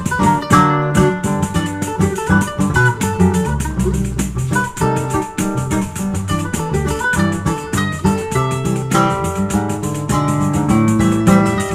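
Live choro played by a bandolim (Brazilian mandolin), a seven-string acoustic guitar and a pandeiro. The bandolim runs a quick plucked melody over the guitar's low bass lines, and the pandeiro keeps a steady jingling beat.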